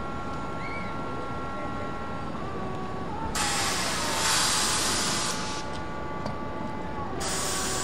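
Vintage R33/R36 subway train with a steady whine of several tones, broken twice by loud bursts of compressed-air hiss: one about two seconds long starting a little after three seconds in, and another starting near the end.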